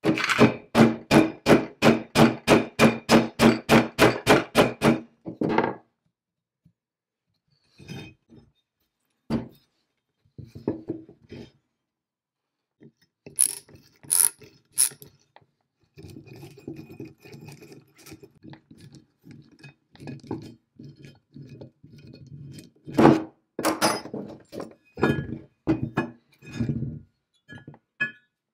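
Ratchet wrench clicking in a quick, even run, about four clicks a second, for roughly five seconds as a bolt in the cast-iron base is turned. After that come scattered clicks, a few bright metal clinks and some louder knocks as the brass and steel parts are handled.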